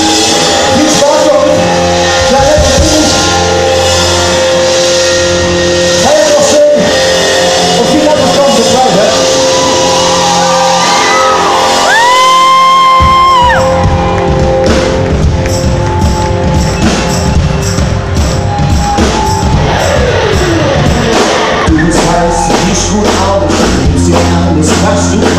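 Live pop-rock band playing a song's build-up: sustained chords with wordless vocal and shouts over them, then after a short held note the drums and full band come in about halfway through with a steady beat.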